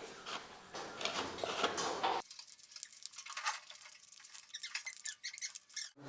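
Steel putty knife spreading joint filler over mesh-taped gypsum board joints: a string of faint scrapes and light clicks of the blade on the board.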